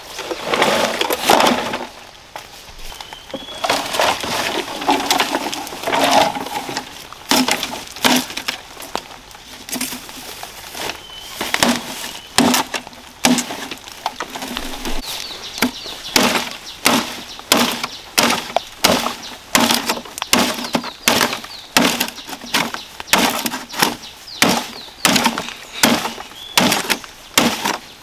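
Wood being struck and cracked again and again: irregular knocks at first, then a steady run of about two blows a second. A bird chirps briefly a few times.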